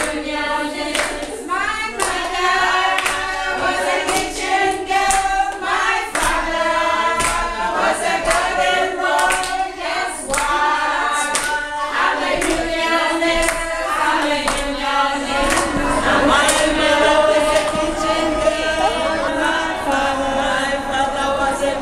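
A group of voices singing together in unison to steady hand clapping. About fifteen seconds in, the singing grows fuller and a little louder.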